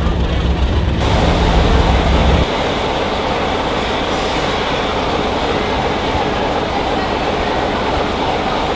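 English Electric Class 37 diesel locomotive's engine running as it rolls through the station, a deep steady hum. It cuts off abruptly about two and a half seconds in, giving way to a steady rushing hiss.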